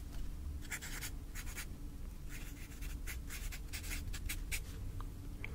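Pen writing on paper: a run of short, irregular scratching strokes.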